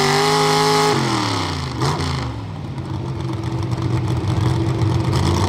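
Pulling pickup's engine at full throttle hauling a weight-transfer sled. About a second in, the throttle is let off and the revs fall sharply, and the engine then runs on at a low, steady speed as the pull ends.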